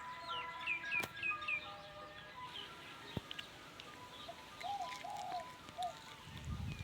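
Birds chirping in a quick run of short falling notes over the first second and a half, then a few short, low coos from a dove about two-thirds of the way in, over steady tones of background music.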